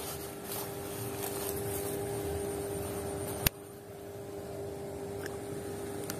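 Steady background hum, with one sharp click about three and a half seconds in, while a soft frog lure is cast from a Shimano Calcutta Conquest BFS baitcasting reel.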